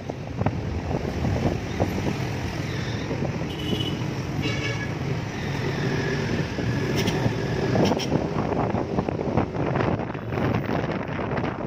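Wind buffeting the microphone and road noise from a moving Yamaha NMAX scooter, with the scooter's engine and surrounding car traffic underneath. A brief horn toot sounds about four and a half seconds in.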